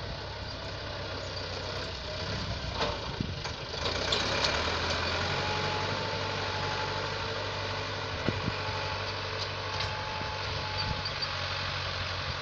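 Tractor engine running steadily, getting louder about four seconds in, with a few short knocks.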